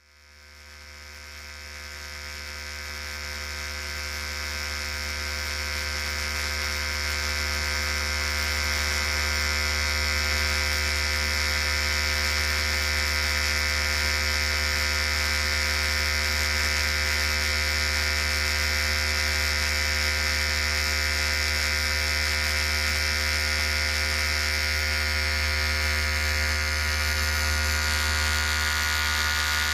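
Electric hair clippers running with a steady electric buzz and hum. The buzz fades in over the first several seconds after a brief silence, then holds steady.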